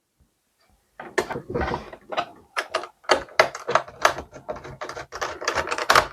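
A screwdriver and small case screws clicking and scraping against a desktop PC's metal case while it is being screwed back together, in a quick, irregular run of sharp clicks that starts about a second in.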